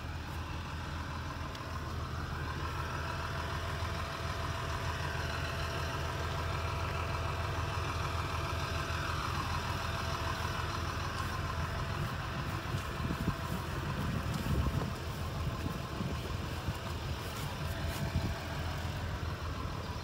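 Kubota L3350 tractor's diesel engine idling steadily, with a few short low bumps in the second half.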